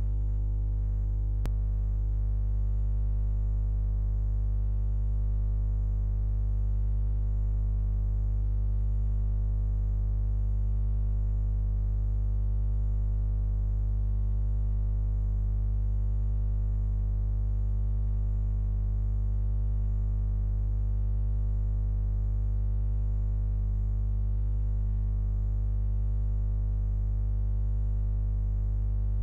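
A steady, unchanging low hum with a stack of even overtones. There is one faint click about a second and a half in.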